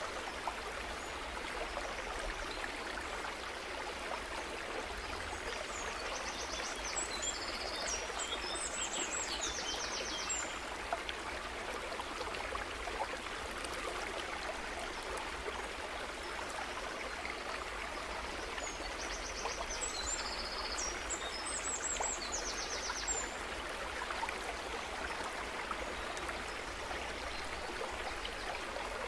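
Steady rush of flowing water, like a stream. A brief cluster of high chirps comes twice, about twelve seconds apart, and looks the same each time.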